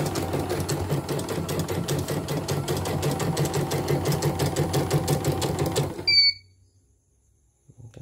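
CNY computerized embroidery machine test-stitching after its crushed sensor was replaced: a rapid, even stitching clatter that stops abruptly about six seconds in, with a short electronic beep as it halts.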